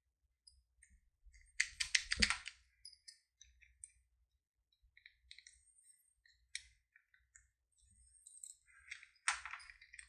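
Plastic letter dials of a Master Lock 1534D word combination padlock clicking and rattling as a small metal tool pries between them. The dials are being forced apart to read each one's setting. There is a quick run of rattling clicks about two seconds in and another near the end, with lighter scattered clicks in between.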